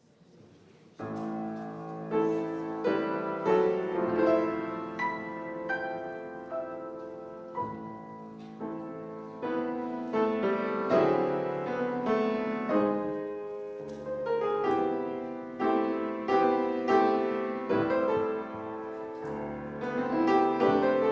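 Grand piano playing alone, with chords and single notes struck and left to ring, beginning about a second in: the piano introduction before the trombone enters.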